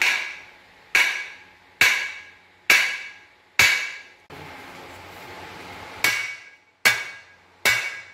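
Sledgehammer blows ringing on the steel housing of a JCB 3D rear axle, knocking the unbolted housing sections apart. Five sharp strikes about a second apart, a pause of about two seconds, then three more, each with a short metallic ring.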